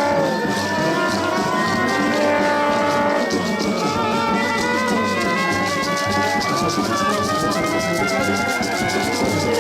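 Brass band playing, horns holding long notes over a fast, steady percussion beat.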